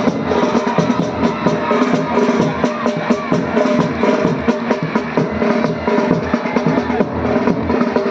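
Military pipe band playing on the march: bagpipes sounding held notes over a steady beat of snare and bass drums.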